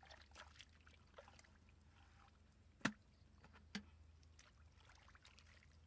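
Faint sounds of bare feet wading through shallow mud and water, with two short sharp sounds, about three and about four seconds in.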